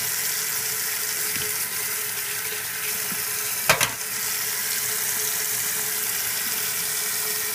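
Tap water running steadily into a stainless steel sink and washing around the drain flange. There is a single sharp knock about halfway through.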